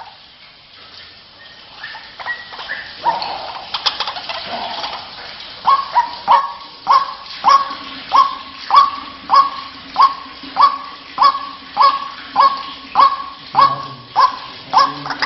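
White-breasted waterhen (ruak-ruak) calling: a few scattered notes, then from about six seconds in an evenly repeated call, about one and a half calls a second. This is the call used to lure the birds.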